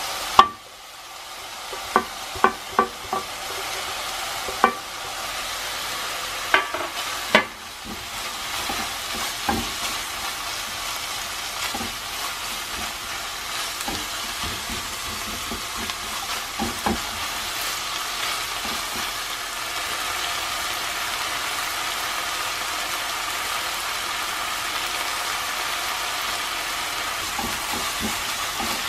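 Ground pork, onion and chilies sizzling steadily in a frying pan as they are stir-fried. A spatula clicks sharply against the pan about nine times in the first several seconds.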